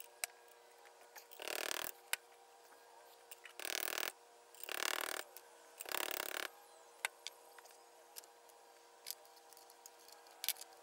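Four short rubbing strokes of a cloth worked over a metal tube at a motorcycle swing-arm pivot, with scattered light metallic clicks between them.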